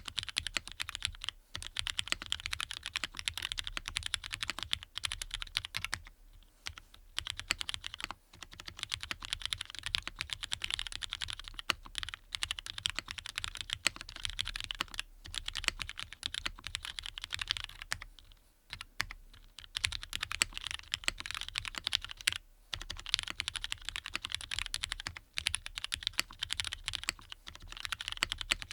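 Continuous fast typing on a Matrix Lab MATRIX 8XV 3.0 mechanical keyboard with lubed Cherry MX Black linear switches on an aluminium plate: a dense run of key clacks with short breaks every few seconds.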